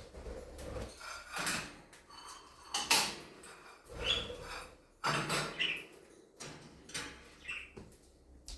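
Pet budgies flying loose in a room: a few short chirps now and then, among short fluttering rustles and light knocks.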